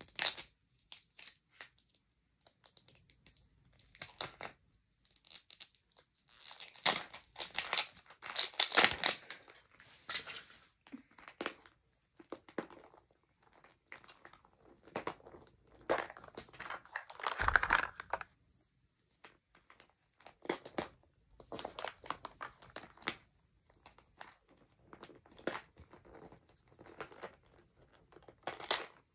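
Plastic wrapping and peel-off seals on a 5 Surprise Mini Brands capsule being picked at, torn and crinkled by hand, in irregular bursts of crackling. The loudest stretches come about a quarter of the way in and just past the middle, with a dull bump there too.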